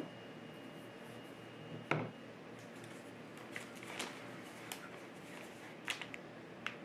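Objects being set down and handled on a table: a solid knock about two seconds in as a metal espresso portafilter is laid into a wooden tray, then a few light clicks and taps.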